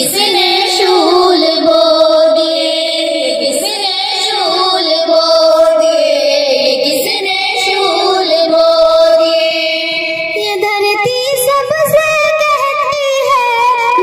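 Schoolgirls singing a song together through microphones and a PA system, one lead voice carrying the melody with others joining, the tune changing about ten and a half seconds in.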